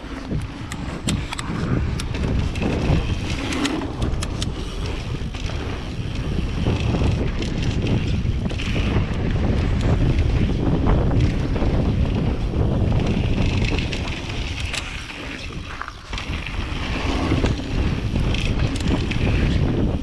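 Mountain bike rolling fast downhill on a dirt trail: wind buffeting the camera microphone over the rumble of the knobby Maxxis DHF tyres on dirt, with scattered clicks and rattles from the bike. The noise eases briefly a little past the middle, then picks up again.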